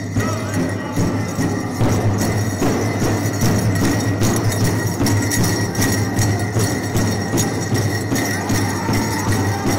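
Powwow drum group beating a big drum in a steady beat and singing, with bells jingling along.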